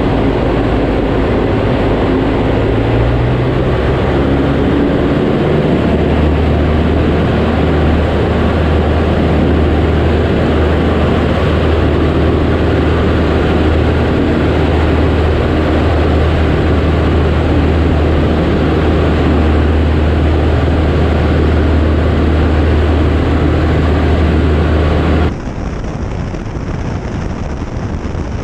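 Cessna 152's four-cylinder Lycoming engine and propeller droning in the cockpit. The pitch shifts during the first few seconds, then holds steady. About three seconds before the end the sound drops abruptly to a quieter, duller drone.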